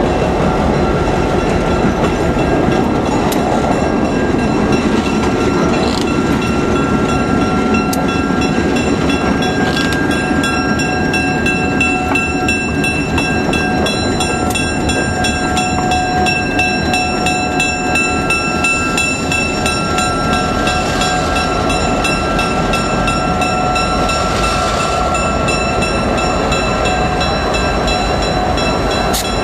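EMD GP7 diesel-electric locomotive with its two-stroke V16 engine running as it rolls slowly past close by, a loud steady drone with a faint whine over it.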